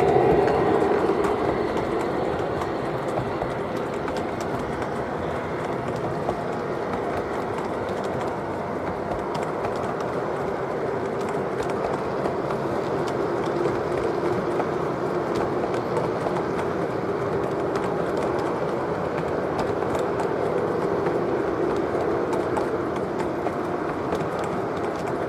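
O gauge model freight cars rolling past on three-rail track: a steady rumble of metal wheels on the rails, with faint clicks throughout.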